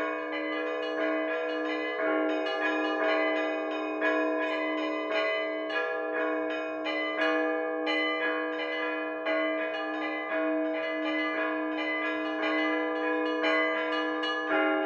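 Orthodox church bells rung in a full peal: many bells struck in a quick rhythm, about three strikes a second, over a lower bell repeated steadily underneath.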